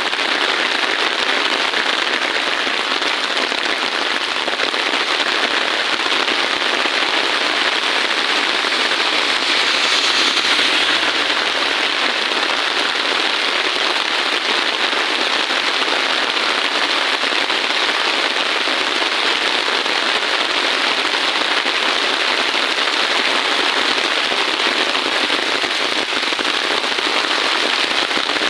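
Heavy rain falling steadily, a little louder about ten seconds in.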